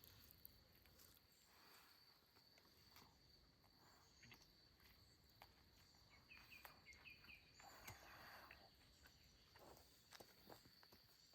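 Quiet forest ambience: a steady high-pitched insect drone, with faint scattered ticks and rustles. About two-thirds of the way in comes a quick run of about six faint chirps, followed by a short rustle.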